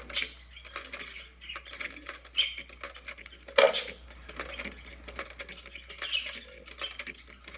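Vintage Singer 44-10 industrial sewing machine turned by its hand wheel, with no motor hooked up: the needle and feed mechanism tick and clack irregularly, with one louder knock about halfway through.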